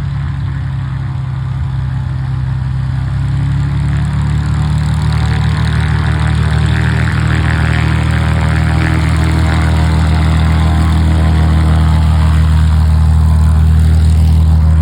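Engines of a large flying boat running steadily with a low, even drone that grows gradually louder.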